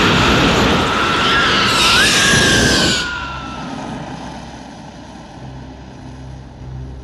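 Loud roaring rush, like a spacecraft or jet engine sound effect from a science-fiction film soundtrack, with a whistling tone that jumps up briefly near the two-second mark. It cuts off abruptly about three seconds in, leaving a quieter, steady low drone.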